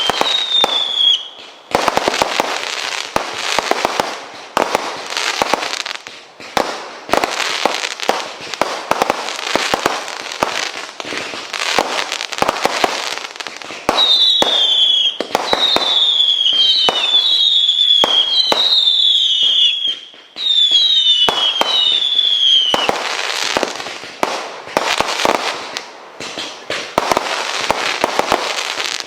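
A firework firing a long continuous barrage of rapid bangs. Two runs of descending whistles cut through it, one about a second in and a longer stretch in the middle.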